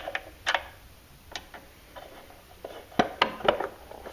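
Sharp clicks and knocks of a hand working the plastic cover and housing of a switched-off 1x30 bench belt sander to open it up. There are a few scattered clicks, then a cluster of three about three seconds in.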